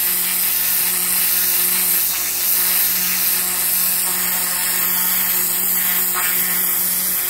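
Pressure washer's turbo lance jet-washing block paving: a steady loud hiss of high-pressure water blasting moss and dirt off the blocks, with a steady low hum underneath.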